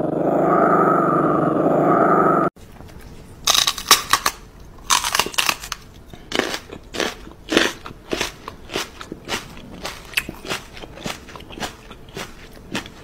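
A small dog growling in a dense, steady rumble for about two and a half seconds, which cuts off abruptly. A run of crisp crunching chews follows, about two a second.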